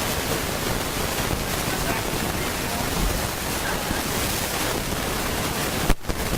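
Loud, steady hiss of recording noise masking the room, with a brief dropout near the end: a faulty, noisy audio track.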